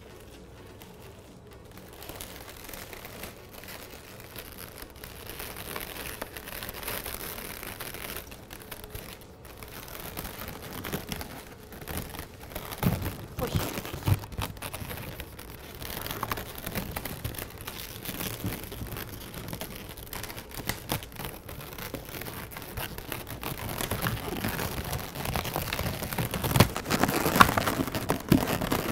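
Latex modelling balloons being handled and rubbed together, an irregular crinkling, rubbing crackle with scattered sharper clicks that grows louder toward the end.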